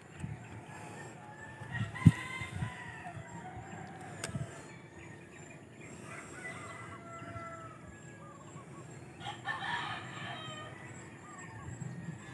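Roosters crowing faintly several times, with a sharp knock about two seconds in and another softer one a couple of seconds later.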